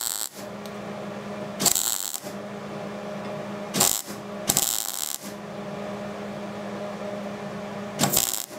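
MIG welding arc crackling in short bursts, four of them each under a second, as a stitch (trigger) weld is laid on thin exhaust tubing. Each spurt is kept short so the joint can cool between them. A steady low hum runs underneath.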